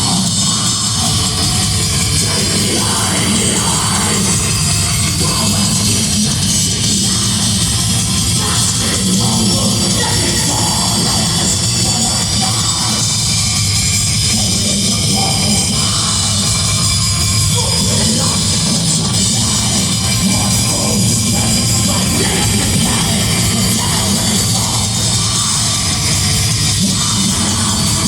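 Heavy metal band playing live at high volume: distorted guitars and pounding drums, with shouted vocals at times, as recorded from within the crowd.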